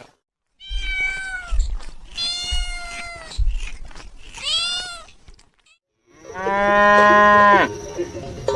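A cat meowing three times, each meow rising then falling in pitch. After a short pause comes a longer, lower, steady animal call that drops in pitch as it ends.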